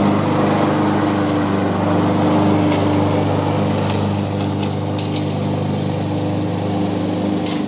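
Lawn mower engine running steadily while cutting grass, easing off slightly as the mower moves away, with a few sharp clicks partway through and near the end.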